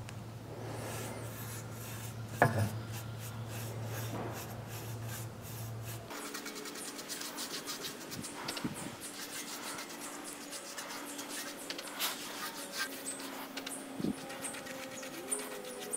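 Paintbrush scrubbing rust converter onto bare steel refrigerator panels, a run of short scratchy brush strokes. A low hum underneath stops abruptly about six seconds in.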